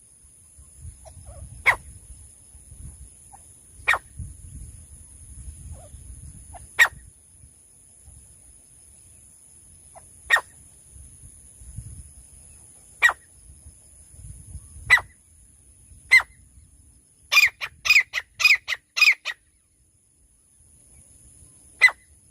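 Francolin (teetar) calling: single sharp, harsh notes every two to three seconds, then a quick run of about six notes near the end, over a low rumble.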